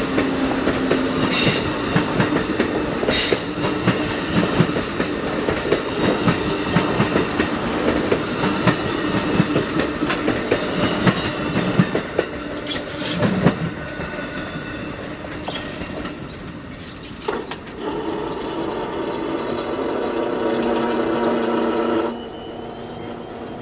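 Amtrak passenger cars rolling past at speed, with wheels rumbling and clicking over the rail joints. The sound fades once the last car has passed, about halfway through. Near the end a steady droning tone builds, then cuts off abruptly.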